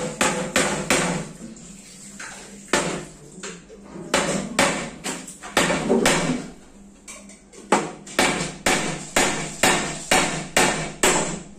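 Hammer driving nails into wood: repeated sharp blows in several runs of about two strikes a second, with short pauses between the runs.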